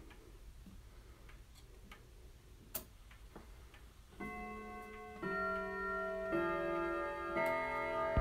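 1950s grandfather clock ticking softly, then, about four seconds in, its chime starts: four ringing notes about a second apart, sounding the quarter hour, each note ringing on under the next.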